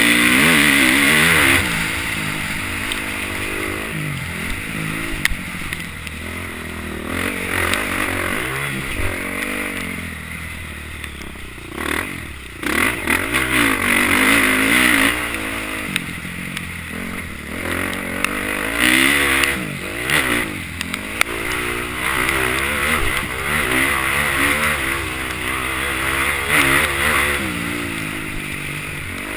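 Motocross bike engine heard from the rider's helmet, revving up and falling off again and again as the rider opens and closes the throttle and shifts gear. The revs drop away sharply about twelve seconds in and again around twenty seconds.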